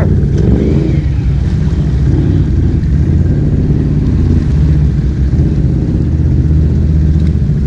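ATV engine running steadily at low revs while the quad wades through deep water.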